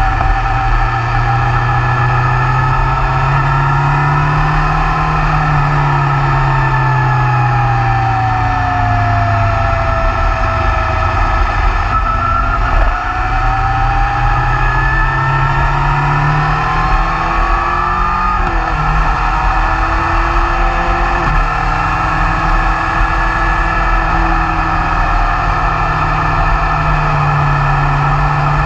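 BMW S1000R's inline-four engine running on the move, its pitch falling and rising again over several seconds with the throttle through the bends, with a brief dip near the middle. A steady rush of wind and road noise runs under it.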